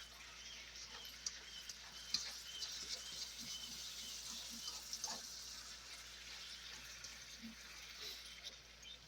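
Faint sizzling and crackling of cabbage, onions and freshly added garlic frying in a pan, with small scattered clicks as it is stirred.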